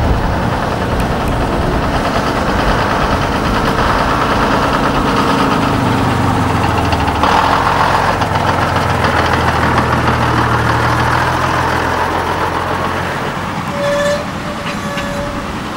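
AEC lorry's diesel engine pulling up close. Its deep drone builds, is loudest about halfway through, then eases off.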